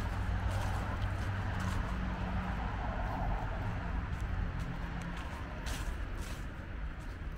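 Street traffic: a motor vehicle's engine hum with the swell of a vehicle passing in the first few seconds, and walking footsteps about twice a second.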